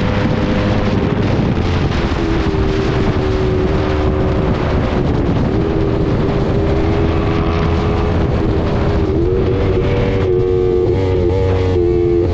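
Motorcycle engine running at cruising speed, with wind rushing over the microphone. The engine note dips slightly about two and five seconds in, then climbs again about nine seconds in.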